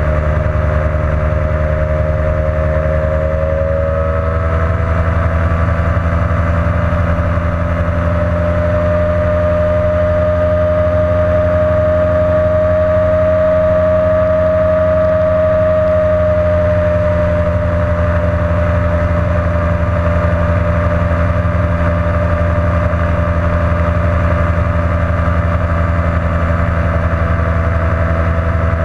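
Ultralight trike's engine and pusher propeller running steadily in cruising flight, a loud even drone whose pitch rises a little about four seconds in.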